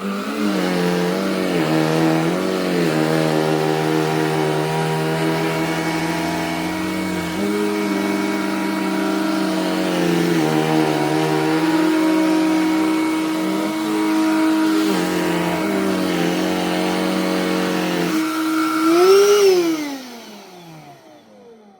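Cordless handheld vacuum cleaner running, used to pick up shed dog hair; its motor whine dips in pitch now and then under load. Near the end the whine rises briefly, then glides down and fades as the motor is switched off and spins down.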